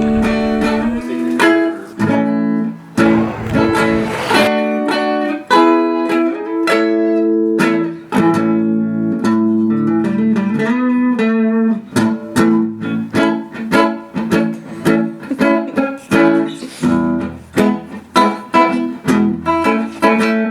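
Background music: a plucked guitar tune with quick picked and strummed notes.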